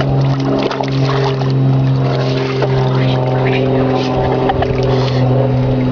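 A steady motor hum holding one pitch, with a few short knocks and splashes over it.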